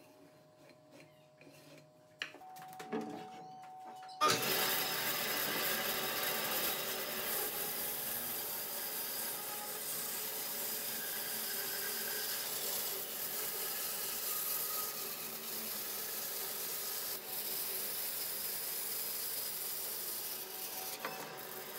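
Vertical band saw cutting through a large rotten log, a dense steady noise that starts suddenly about four seconds in and holds level. Before it, faint ticks and scratches as a pencil line is marked on the log.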